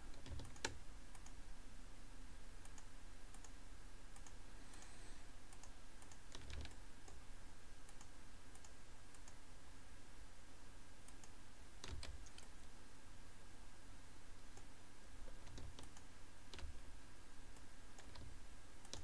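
Computer mouse and keyboard clicks, a handful of scattered sharp clicks a few seconds apart, over a steady low hum, made while objects are being selected one after another in Blender.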